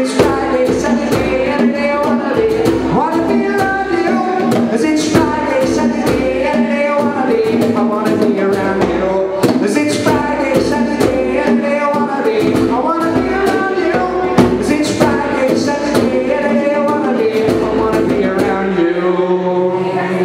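Live acoustic reggae-rock song: a man singing over a strummed acoustic guitar, with bongo hits keeping the beat. Near the end the playing settles into a held closing chord.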